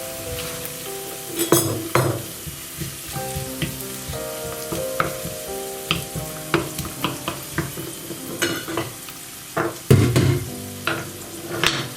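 Food sizzling in hot oil in a frying pan while a utensil stirs and scrapes it, with irregular sharp knocks against the pan, the loudest about a second and a half in and again near the end.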